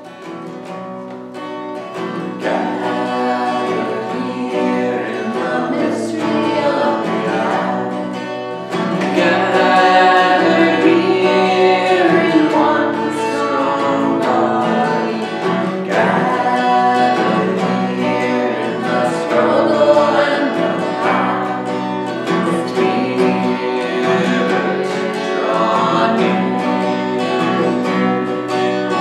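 A man and a woman singing a hymn together, accompanied by a strummed acoustic guitar. It starts softly and grows louder over the first few seconds as the voices come in.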